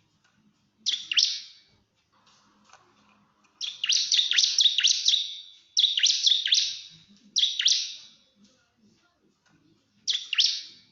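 Bar-winged prinia (ciblek) giving loud bursts of sharp, rapid, high notes, its 'nembak' shooting call, a territorial call to draw out a rival. The longest run comes about four seconds in, with shorter bursts before and after.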